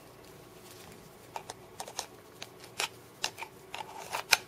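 Small plastic-handled flip-out knife being worked open in the hands: a run of light, irregular clicks and taps, the sharpest near the end.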